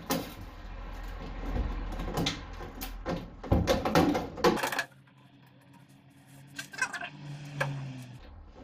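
Rust-rotten sheet-steel front wing of a Mk2 Ford Escort being pulled and bent by hand, the panel flexing and clattering, with several sharp metallic knocks in the first half. A few faint ticks follow near the end.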